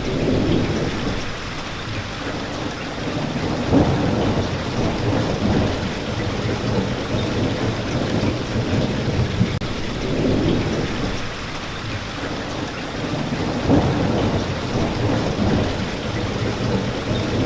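Steady heavy rain with low thunder swelling up every few seconds, strongest about four, ten and fourteen seconds in.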